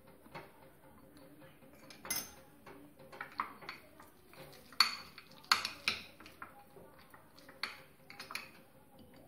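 Steel spoon stirring and scraping a cheese-spread mixture in a glass bowl, with irregular clinks and taps of spoon on glass; the loudest are two sharp clinks about halfway through.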